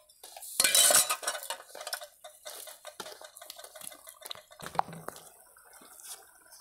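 Metal ladle scraping and clinking against a large metal wok while stirring, loudest about a second in, then lighter scrapes and clicks, with one sharp clink near the five-second mark.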